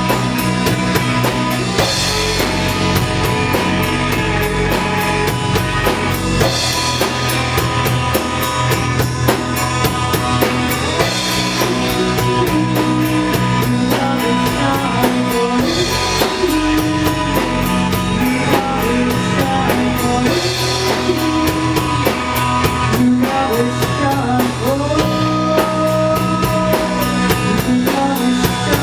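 Loud rock song playing: a drum kit beat, guitar and singing.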